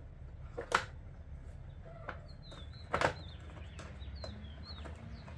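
Plastic air-filter cover knocking and clicking twice as it is pressed onto the air box and the wing nut is worked on, with a small bird giving a few short, high, falling chirps in the background over a low steady hum.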